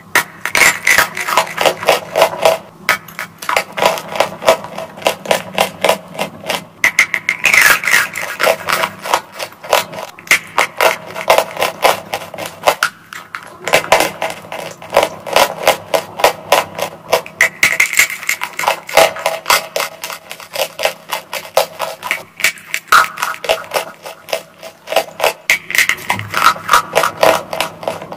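Crunching of dry white chalk bars being bitten and chewed up close, a fast run of crisp crunches several a second, pausing briefly every few seconds between bites.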